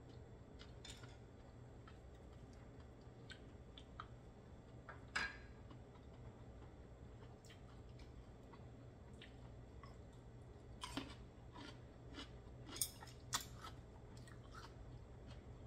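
Quiet eating sounds of raw oysters over a low steady hum: scattered soft clicks and taps of chewing and of chopsticks and a glass being handled. A few sharper clicks come about five seconds in and again in a cluster between about eleven and thirteen and a half seconds.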